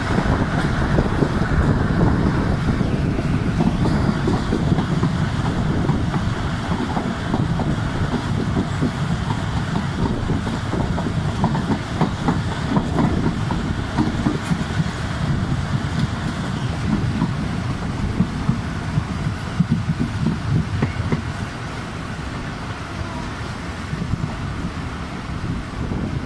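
Pakistan Railways passenger train coaches running along the track, heard from an open coach window: a steady wheel-on-rail rumble with irregular clicks and clacks of the wheels over the rails. The rumble eases a little near the end.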